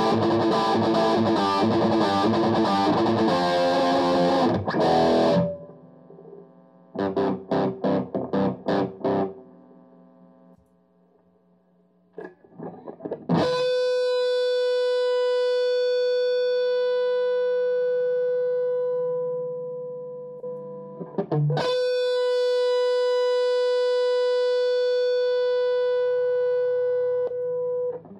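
Distorted electric guitar through a Rhodes Artemis amp's lead channel: fast riffing, then a burst of short muted chugs and a brief pause. Then come two long held single notes that each sustain for several seconds, a saturation test of the lead mode.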